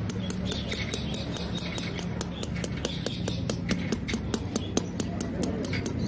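Rapid, even clicking taps, about five a second, as a rubber puncture patch on a motorcycle inner tube is pressed down with a tool to bond it, over a steady low hum.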